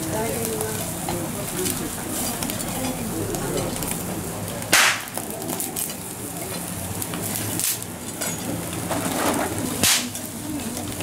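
Skewered eel fillets sizzling over a charcoal grill, a steady crackling hiss of fat on hot coals. Three brief loud hisses break through, about five, eight and ten seconds in.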